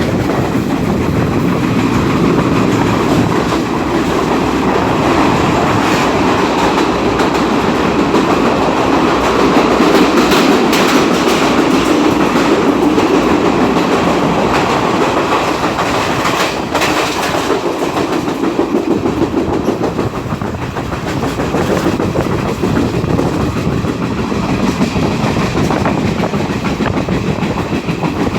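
Train running along the track, heard from aboard: a steady rumble with wheels clattering over the rail joints.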